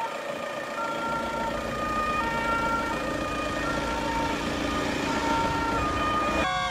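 Fire truck siren sounding in steady tones that step between a higher and a lower pitch, over a low rumble. Near the end a different sound with falling, sliding tones cuts in.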